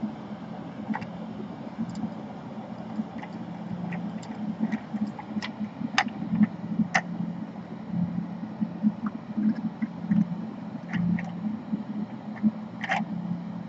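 Steady low hum of a bench fume-extractor fan, with scattered small clicks and taps from work on the laptop board.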